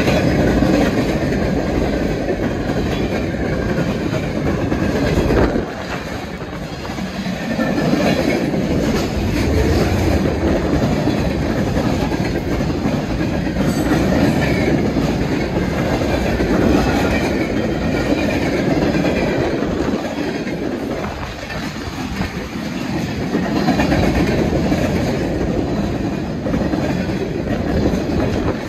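Freight train cars, centerbeam flatcars and boxcars, rolling past: a steady rumble of steel wheels on rail with clickety-clack over the joints. It eases briefly twice before building again.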